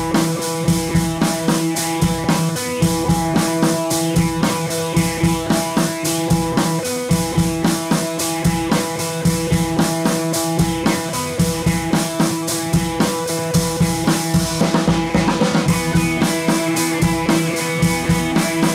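Rock music with a drum kit keeping a steady beat under sustained guitar tones.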